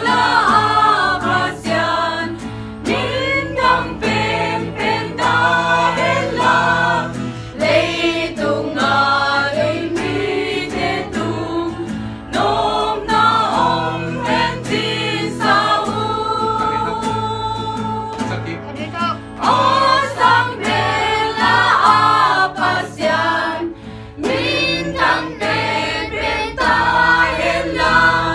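A small group of mixed voices, men, women and children, singing a Christian praise hymn together in phrases.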